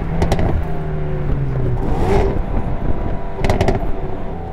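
Hyundai Veloster N's 2.0-litre turbocharged four-cylinder running on the road with its sport exhaust open, the engine note shifting partway through. Sharp exhaust crackles ('popcorn') come in short clusters near the start and again about three and a half seconds in.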